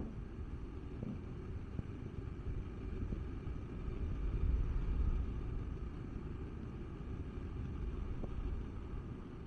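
Cars driving past close by on a town street: a low traffic rumble that swells as one car passes about four to five seconds in, and again more softly near the end as another goes by.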